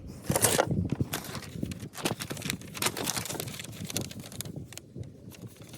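Small hardware parts (bolts and washers) being handled and sorted: a short rustle about half a second in, then a run of light clicks and clinks.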